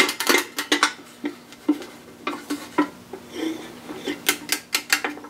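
Torque wrench ratcheting in quick runs of sharp metallic clicks as the 10 mm oil pump bolts are run down and tightened to 7.4 ft-lb.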